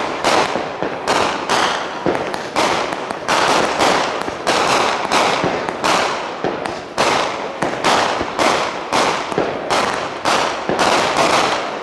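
Aerial fireworks firing a rapid, steady barrage of shots, two or three sharp bangs a second, each with a short ringing tail.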